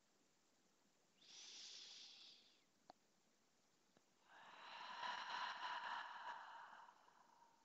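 A woman breathing slowly: a soft breath in lasting about a second and a half, then a longer, louder breath out of about three seconds, with a faint click between them.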